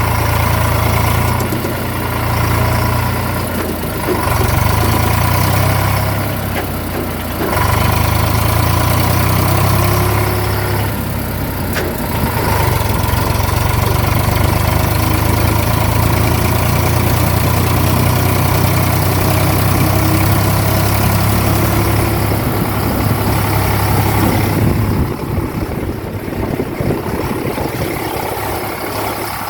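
Tractor diesel engine running steadily, its note dipping and picking up again several times as it works under changing load, then easing off slightly near the end.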